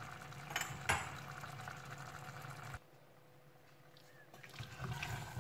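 Faint sizzling of beef and masala in a pressure cooker, with two light knocks about half a second and a second in. It cuts to near silence for a couple of seconds, then a wooden spoon stirring the meat comes in near the end.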